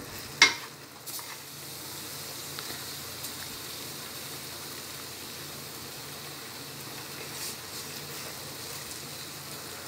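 Thick onion-tomato masala sizzling gently in a nonstick pan on low heat while a wooden spatula works it over boiled egg halves. There is one sharp tap of the spatula on the pan about half a second in.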